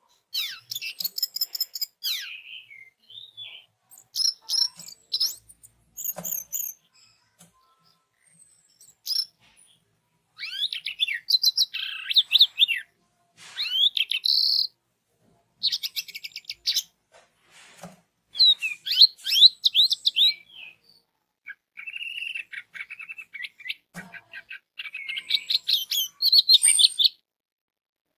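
Orange-headed thrush (anis merah) singing: a run of fast, varied high phrases of chirps and whistles, each a second or two long, separated by short pauses.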